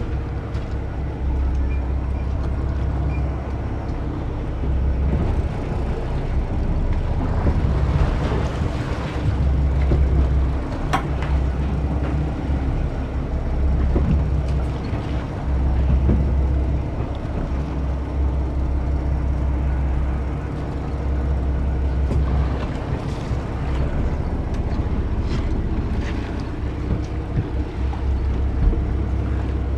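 Boat engine running, a steady low hum that swells and fades every few seconds, with wind on the microphone and a few sharp clicks.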